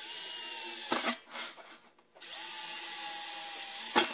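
Cordless drill boring pilot holes in a thin sheet-steel drum lid, running in two steady bursts, about a second and then about two seconds, with a short stop and a few knocks between. The bit is one the driller admits should have been sharper.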